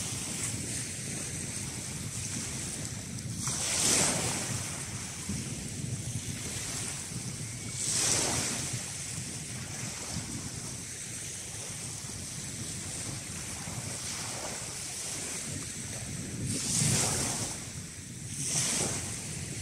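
Small sea waves breaking and washing up a shingle beach: a steady rush of surf and wind, with four louder hissing surges of water over the pebbles, about 4 s, 8 s, 17 s and 19 s in.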